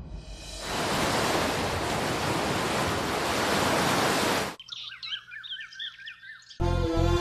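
Ocean surf rushing, which cuts off after about four seconds. A bird then gives a rapid series of repeated chirps, and music with a beat comes in near the end.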